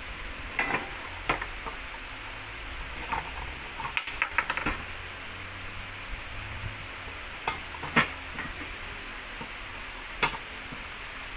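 Parts of a children's tricycle being handled and fitted together on a tabletop: scattered clicks and knocks as the front fork and wheel are joined to the frame, the sharpest about eight and ten seconds in.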